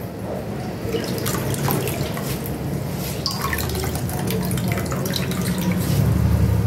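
Water dripping and splashing back into a bowl as grated potato is squeezed out by hand, in irregular small splashes. A low rumble runs underneath and grows louder near the end.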